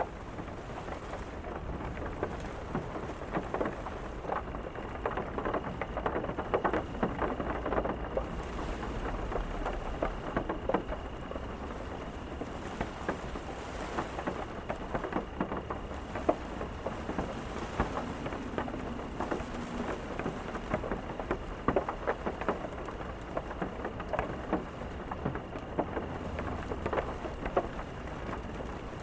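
Steady rain falling, with many separate drops striking a hard surface close by.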